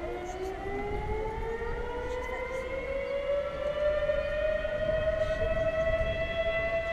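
Warning siren winding up: one tone rising steadily in pitch for the first few seconds, then holding. It is the warning signal sounded before the chimney demolition blast.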